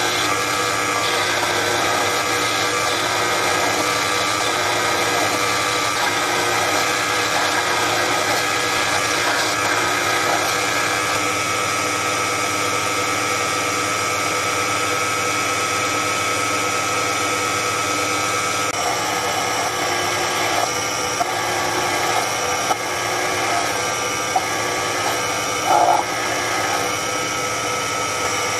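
Proxxon PD 250/E bench lathe running, its motor whining steadily as it turns silver steel stock to clear space for a thread. The tone shifts slightly twice, and a few short clicks come near the end.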